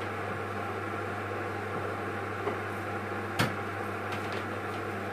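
A steady low mechanical hum, with one sharp click about three and a half seconds in.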